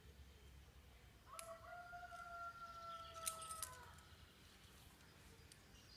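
A distant rooster crowing once, one long call that rises, holds and drops off at the end, with a few faint sharp clicks during it.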